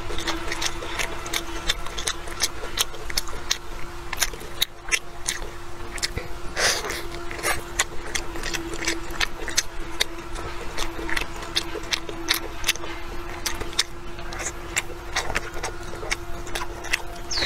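Close-up chewing of a filled flatbread wrap: an irregular run of mouth clicks and smacks, several a second, over a steady low hum.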